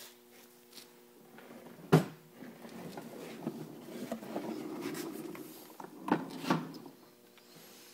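A sharp knock about two seconds in, then several seconds of rubbing and scraping, with two more knocks near the end: handling noise as the phone is moved around the engine and a hand grabs the metal engine stand.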